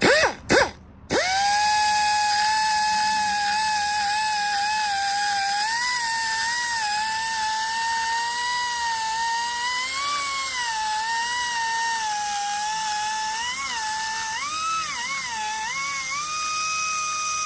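Ingersoll Rand air die grinder with a long carbide burr, blipped twice and then run steadily as a high whine while grinding the intake port of a cast-iron cylinder head. The pitch wavers as the burr cuts and dips several times near the end as it bears down harder.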